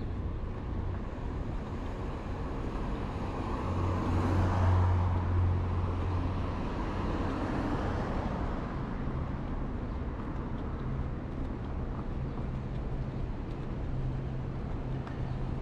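Road traffic on a city street: a vehicle passes close by about four seconds in, its sound rising and then fading, followed by a steady low engine hum.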